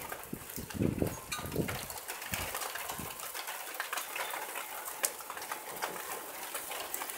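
Heavy thunderstorm rain falling: a steady hiss with many sharp ticks of drops striking. For about the first three seconds, gusts of wind buffet the microphone with low rumbling thumps.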